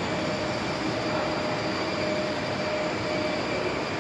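Battery-powered ride-on toy jeep driving: a steady electric motor whine, with its wheels rolling on a tiled floor.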